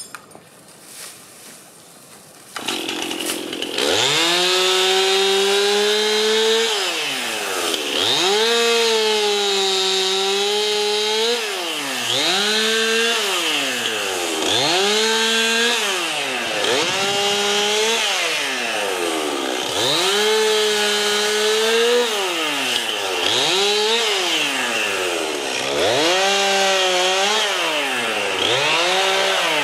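Two-stroke chainsaw starting up about three seconds in, then running with its pitch rising and dropping back again and again, about every two seconds, as the throttle is worked.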